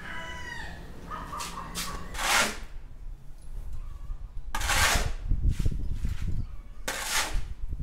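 A steel shovel scraping across a concrete floor while turning a heap of dry-pack mortar of cement and sand, three scrapes about two and a half seconds apart. A rooster crows in the background near the start.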